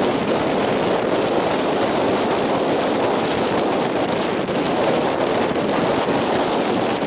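Strong onshore wind and high surf breaking, heard as a steady rushing noise with wind buffeting the microphone.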